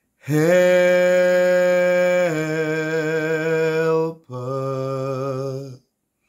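A man singing unaccompanied, holding one long note that steps down in pitch partway through, then, after a brief breath, a second, lower and softer held note.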